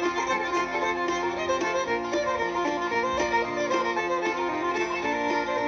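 Background instrumental music with a string melody over a steady beat of about two strikes a second.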